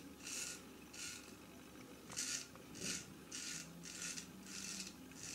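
Freshly sharpened Kobar Solingen straight razor scraping through lathered neck stubble in about eight short strokes, coming every half second or so in the second half. It shaves smoothly.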